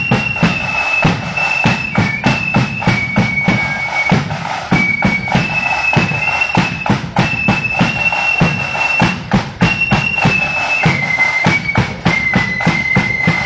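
Marching band of flutes and drums playing a tune: one high, clear melody line of held notes over busy, regular drumming with a deep bass drum.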